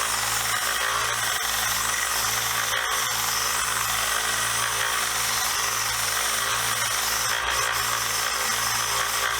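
1x30 belt sander running steadily, smoothing down the rough, chattered edges of a vise's T-handle.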